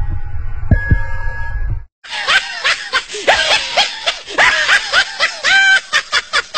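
Dramatic music with a deep, throbbing bass cuts off about two seconds in. A person then laughs hard in a rapid run of high-pitched cackles that rise and fall in pitch.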